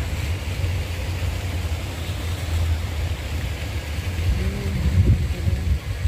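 Low, uneven rumble of wind buffeting a phone microphone, with faint background noise above it.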